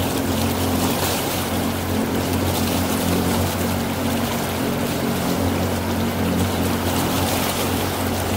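Motorboat engine running steadily under way, a constant low hum, with water rushing and splashing along the hull.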